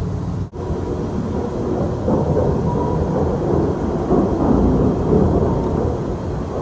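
A loud, deep rumbling and droning noise, of the kind reported as an unexplained 'strange noise' in the sky, with faint held tones and slow swells in it. It cuts out for an instant about half a second in.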